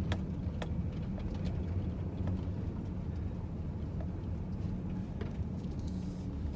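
Steady low rumble of road and engine noise inside a moving car's cabin, with a few faint, irregular knocks.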